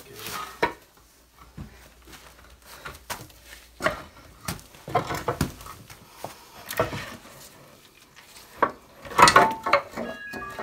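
Irregular clunks, knocks and scrapes of a Roddie pipe-bursting puller's steel frame being shifted into a dirt pit and settled against rock and gravel, loudest near the end.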